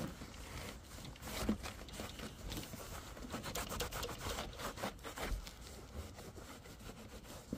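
Dry microfiber towel rubbing over a gray plastic dashboard panel, wiping it dry after steam cleaning: quiet, irregular rubbing strokes.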